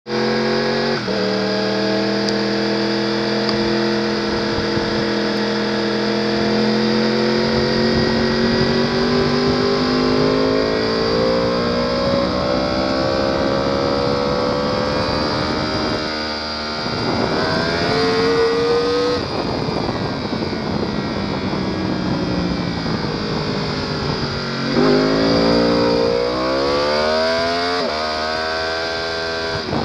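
Sport motorcycle engine running hard on a race track over a steady hiss. Its pitch climbs slowly for the first half, drops sharply near the middle and again about three-quarters through, then rises in quick steps as the bike accelerates again.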